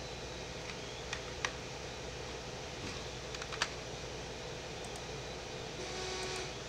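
A few scattered computer keyboard key presses and clicks, sharp and separate, over a steady low background hum, with a brief hiss about six seconds in.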